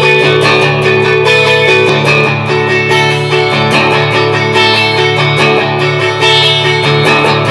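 Background music led by a plucked guitar, steady throughout.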